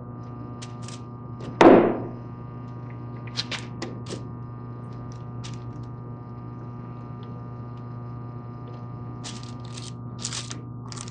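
Quick-release bar clamps being fitted and squeezed onto a straight edge on a wooden workbench. There is one loud thunk about two seconds in, then scattered clicks of the clamps closing, over a steady electrical hum.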